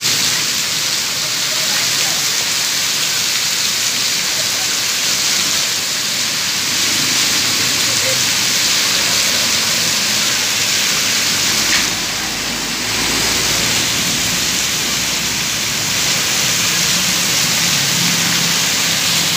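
Heavy downpour: a steady, dense hiss of rain on the road, with water streaming down from an overhang close by. A brief low rumble comes about twelve seconds in.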